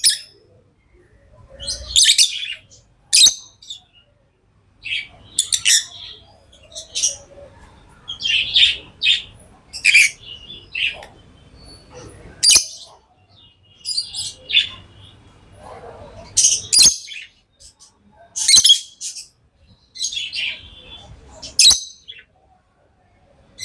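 Lovebirds chirping: short, shrill calls in irregular bursts every second or two.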